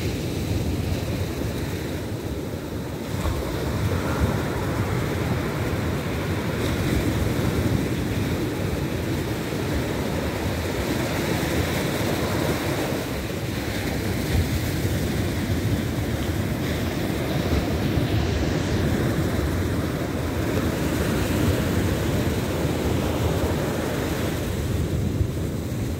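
Ocean surf breaking and washing up a sandy beach, a steady rushing, with wind rumbling on the microphone.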